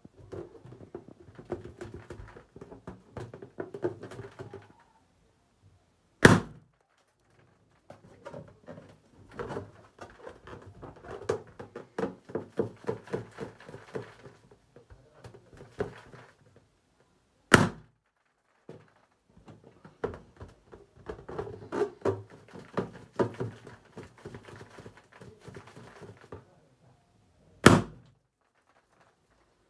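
Clear latex confetti balloons being squeezed and rubbed by hand, making dense rubbing and squeaking sounds, and bursting with three loud pops about ten seconds apart.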